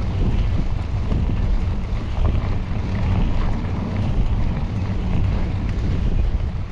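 Wind buffeting the microphone of a riding mountain biker's camera, a steady rumbling rush, with a few faint ticks and knocks from the bike over the trail.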